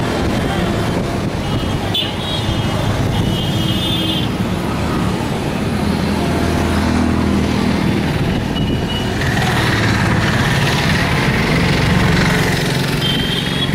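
Road traffic passing close by, with cars and motorcycles running steadily and short horn toots about two seconds in and again near the end.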